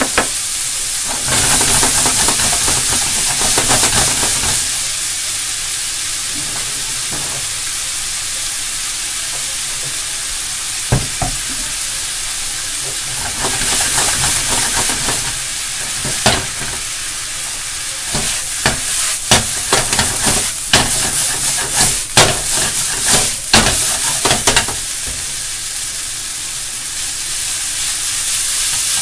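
Noodles and cabbage sizzling in a hot frying pan over a gas flame while being stirred, the sizzle swelling a few times. In the second half a run of sharp clicks and knocks comes as the pan is worked with wooden chopsticks.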